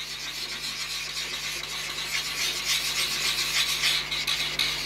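Glue stick rubbed back and forth over a PVC foam board disc: a continuous rapid dry scraping that grows a little louder as it goes.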